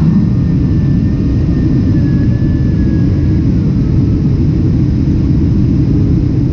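Boeing 767 jet engines heard from inside the passenger cabin: a loud, steady low roar with a faint high whine that dips slightly about three seconds in.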